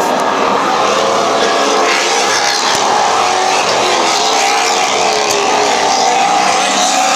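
Several Maserati Trofeo race cars' V8 engines running hard, a continuous overlapping engine note whose pitch slowly rises and falls.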